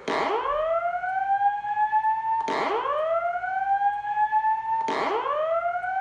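Simplex 4903-9194 fire alarm speaker strobe sounding the whoop evacuation tone between voice messages: three rising sweeps, each about two and a half seconds long, climbing fast and then levelling off before starting again.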